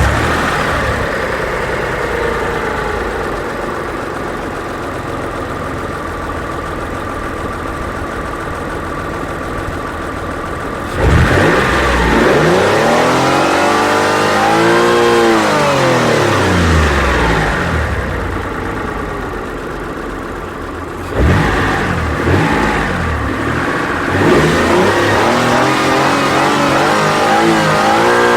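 Modified car engine idling, then revved hard about eleven seconds in, its pitch climbing and falling back over several seconds. It settles briefly, then is revved again with a few shorter blips near the end.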